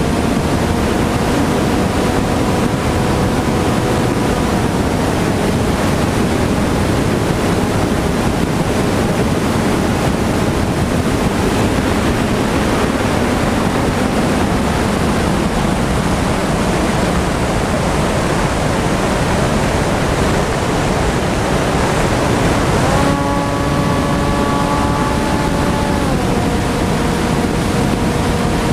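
Heavy wind rush on the onboard camera's microphone of a TBS Caipirinha FPV flying wing in flight, with the faint whine of its electric pusher motor beneath it. The motor tone steps up in pitch about 23 seconds in and settles lower a few seconds later as the throttle changes.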